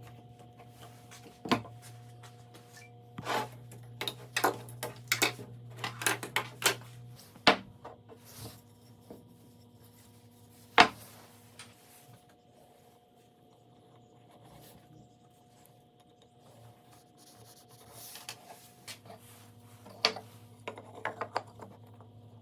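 Wood being handled at a workbench: a quick run of short rubbing or scraping strokes, then a few sharp knocks, the loudest about halfway through, and a cluster of clicks near the end. A faint steady hum sits underneath, dropping out for a while in the middle.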